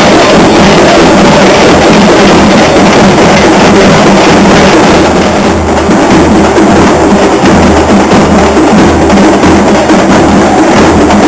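Festival drums played loudly, a steady repeating beat.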